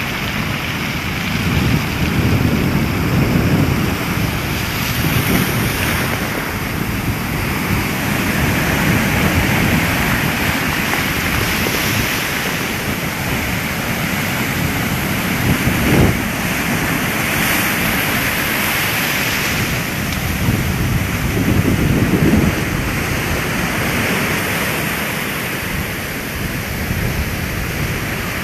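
Storm waves breaking and surging in repeated swells, with wind buffeting the microphone. A single sharp thump about halfway through stands out above the surf.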